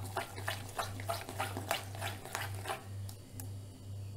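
A hand mixing a thick flour-and-curd batter in a glass bowl: quick wet squelching strokes, about three a second, that stop about three seconds in. A low pulsing hum runs underneath.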